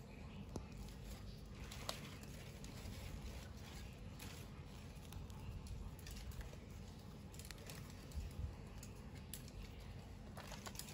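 Light, scattered clicks and taps of small plastic toy pieces and packaging being handled, over a faint steady low background hum.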